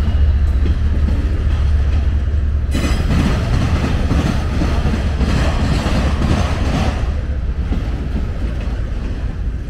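CSX freight train's autorack cars rolling past on the rails, a steady low rumble of wheels and cars.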